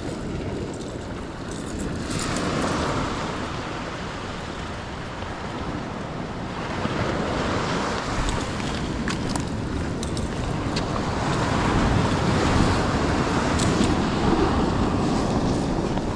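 Ocean surf breaking and washing up the beach, swelling louder twice, with wind buffeting the microphone.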